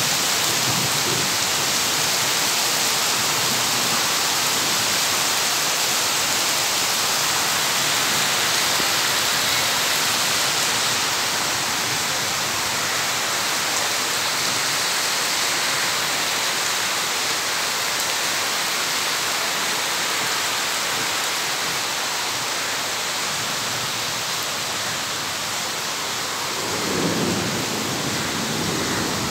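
Steady rainfall, an even hiss, with a brief low rumble of thunder near the end.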